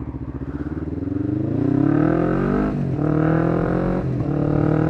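Kawasaki GPZ500S (EX500) parallel-twin motorcycle engine accelerating hard from a junction. The revs rise steadily through first gear, then two upshifts come nearly three seconds in and again about a second and a half later. Each one drops the pitch before it climbs again.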